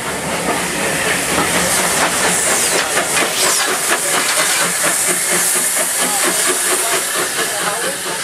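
Steam locomotive hissing steam steadily, with scattered clicks and knocks of train wheels on the rails.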